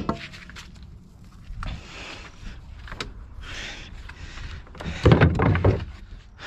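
Handling noise in a small trailered boat: a sharp click at the start, then rustling and knocking as cables and gear are moved about, with a louder burst of low noise about five seconds in.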